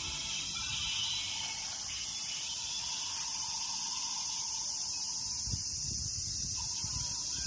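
Steady, high-pitched chorus of insects calling without a break.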